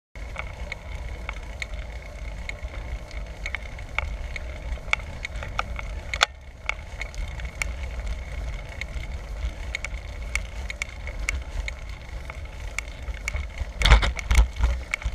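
Bicycle riding noise: a steady low wind and road rumble with frequent irregular rattling clicks and a faint steady high whine. A heavier jolt comes about fourteen seconds in.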